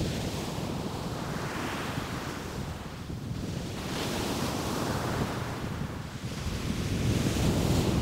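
Ocean surf breaking and washing up a sandy beach, a continuous rushing that swells and eases every couple of seconds. Wind buffets the microphone underneath it.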